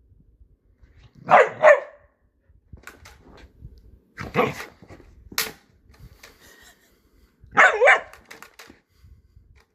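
Mini goldendoodle puppy barking in play: a quick double bark, then single barks about three and six seconds later, with a sharp click in between.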